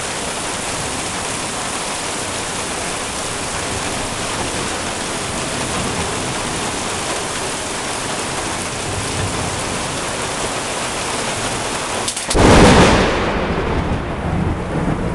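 Heavy rain falling steadily, then about twelve seconds in a sudden, very loud thunderclap from a close lightning strike, a sharp crack that fades into rumbling. It sounded like it hit the house.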